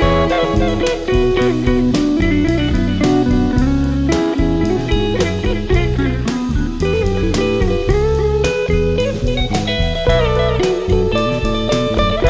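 Blues-rock music: an electric guitar playing sliding, bending lines over a steady drum-kit beat, with no singing.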